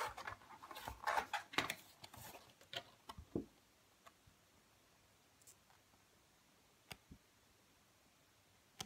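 A pad of thick 250-gram cardstock being picked up, opened and leafed through: card rustling and light knocks for the first three seconds or so, then a few faint taps as sheets are lifted.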